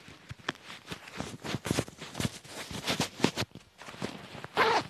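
Clothing handled: shirt fabric rustling and small irregular clicks from a leather belt and its buckle as the shirt is tucked in and the belt done up. Near the end a short louder rasp as the trouser fly is zipped.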